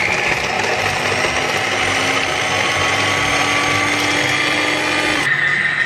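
Borosil electric mini chopper running steadily, its motor whining as the blade minces garlic and spring onion in the plastic bowl; the sound changes slightly about five seconds in.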